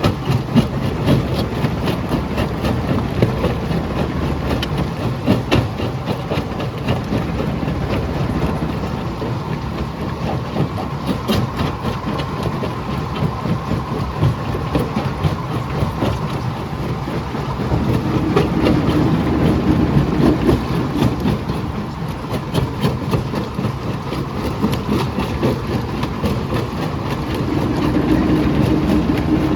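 Jaw crusher running under load, a steady low mechanical drone with constant sharp knocks and cracks of rock breaking between the jaws. A deeper hum swells twice, in the second half and again near the end.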